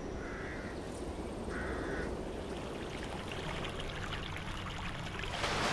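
Quiet outdoor ambience with two short crow caws in the first two seconds, then the steady trickle of water in an indoor swimming pool.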